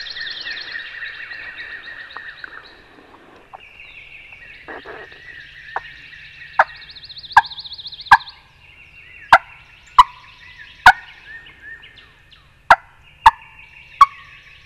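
Songbirds trilling, then from about six seconds in a run of about ten loud, sharp turkey yelps on a turkey call, each a short note dropping in pitch. There is a break before the last three.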